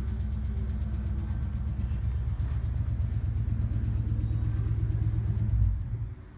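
A car engine idling, a deep steady rumble that cuts off about six seconds in.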